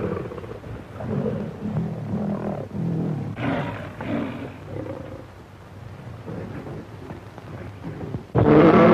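A tiger growling and roaring in several rough bursts. Near the end a loud burst of music cuts in suddenly.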